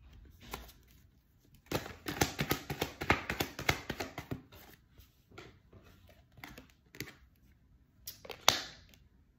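Tarot cards being handled: for a few seconds there is a quick run of papery snaps and rustles, like a deck being shuffled, then scattered single taps and flicks, the sharpest near the end.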